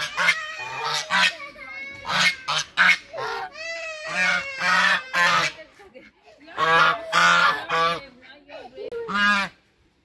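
Hungry Chinese geese honking loudly, a quick run of harsh, nasal honks with several birds calling over one another; the calling stops near the end.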